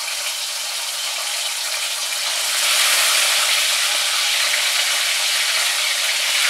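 Pieces of marinated fish sizzling in hot sunflower oil in a kadhai as they are slid in one by one; the sizzle grows louder about two and a half seconds in as another piece goes in.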